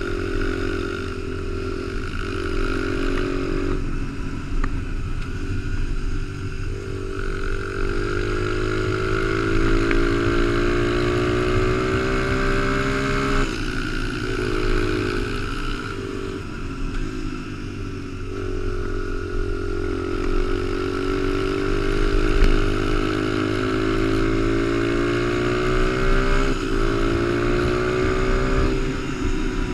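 Honda XR100 mini dirt bike's small single-cylinder four-stroke engine running under the rider, its pitch climbing steadily with speed and dropping back sharply about five times as the rider shifts gears or eases off the throttle.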